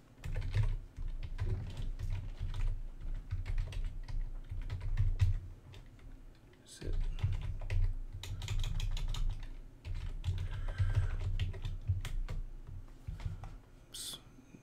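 Computer keyboard typing in two quick runs of keystrokes, with a pause of about a second in the middle, then one short, sharper tap near the end.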